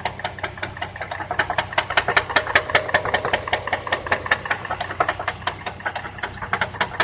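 2002 Chevrolet TrailBlazer's 4.2-litre inline-six idling with a hard, rapid, evenly paced knock from inside the engine. The owner likens it to a rod bouncing around, and the dipstick shows hardly any oil just after an oil change.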